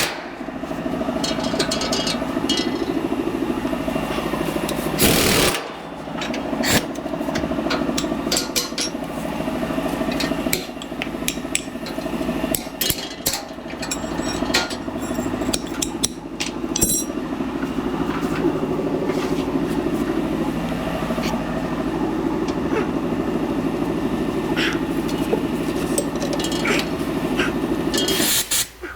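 A motor or engine running steadily, with scattered sharp clicks and knocks over it.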